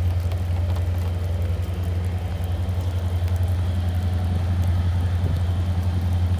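Truck engine idling steadily, a low even hum.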